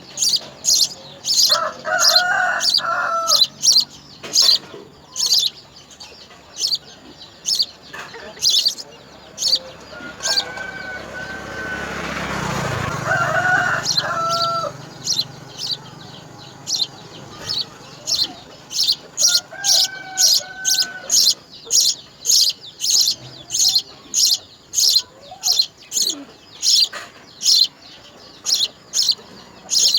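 A small bird chirps over and over, one or two short high chirps a second. A rooster crows a few times in the background. A rushing noise swells and fades around the middle.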